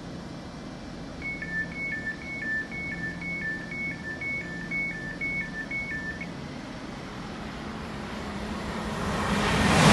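Electronic two-tone warning from an Elizabeth line Class 345 train standing at the platform: a high and a lower beep alternating, about two pairs a second for roughly five seconds, over the train's low steady hum. Near the end the rush of another train approaching at speed swells quickly.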